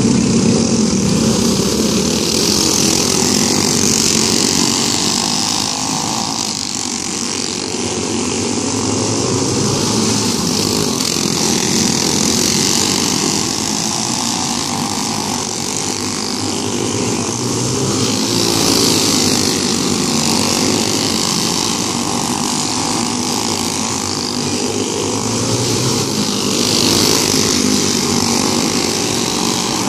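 A pack of racing go-kart engines running at high revs together, the combined sound swelling and fading several times as the field comes past and goes round the far side of the track.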